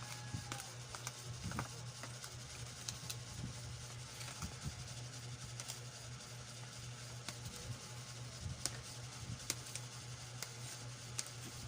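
Light, irregular clicks and taps of kitchen food preparation over a steady low hum.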